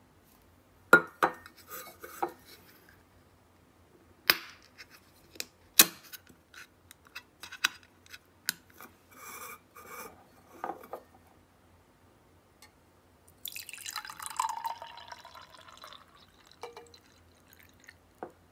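Steel drink can and drinking glass handled on a table: a run of sharp clicks and taps, among them the can's pull-tab snapping open. Later, canned coffee poured from the can into the glass, a splashing pour of about two and a half seconds whose tone rises a little as the glass fills.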